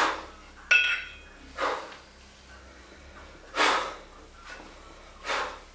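A kettlebell lifter's sharp, forceful breaths, four of them spaced about one and a half to two seconds apart, while holding two 16 kg kettlebells at the chest between jerks. About a second in comes one short metallic clink, the bells knocking together as they drop back into the rack.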